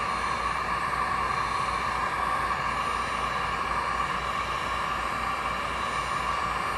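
Electric heat gun running steadily, its fan and blowing air making an even, unchanging whir.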